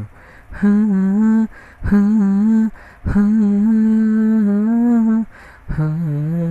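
A man humming a Telugu song's melody without words and without accompaniment, in four phrases of held notes with short breaths between them, the longest held about two seconds in the middle.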